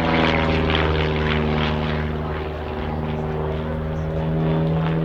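Pitts Special aerobatic biplane's piston engine and propeller droning steadily in flight, the pitch holding low after a fall just before, with a slight dip in loudness midway.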